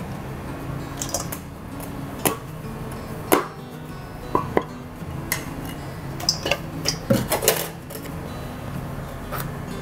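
A cleaver and a kitchen knife knocking and cracking against a lobster's shell and a wooden chopping block. The knocks are sharp and irregular, bunched close together about seven seconds in, with background music under them.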